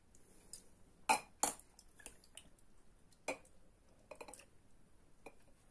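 A spoon knocking against a glass jar while scooping out a chunky tomato mixture: a few separate sharp clinks, the two loudest about a second in, with fainter taps after.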